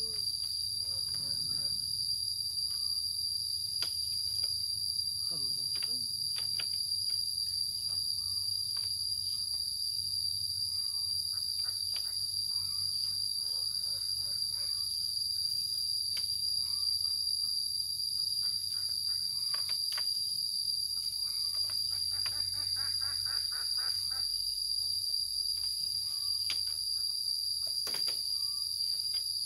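Steady high-pitched drone of insects, with faint scattered clicks and knocks.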